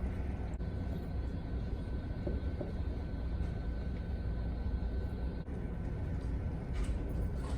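Steady low rumble with a faint constant hum.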